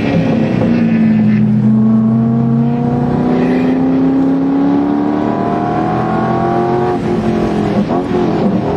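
A Corvette race car's V8, heard from inside the cockpit, pulls hard under load, its pitch climbing slowly through a long stretch of acceleration. About seven seconds in the engine note falls and wavers.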